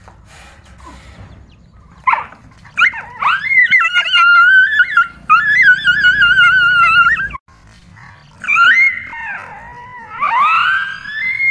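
A dog whining in long, high-pitched, wavering cries. They come in two stretches, with a sudden break about seven seconds in.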